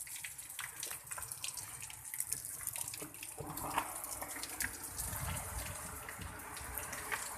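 Water running and dripping, with many small ticks; a low rumble joins about three and a half seconds in.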